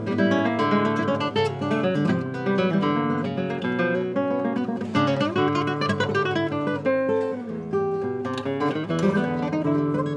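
Solo nylon-string classical guitar, played with a continuous run of plucked melody notes over chords.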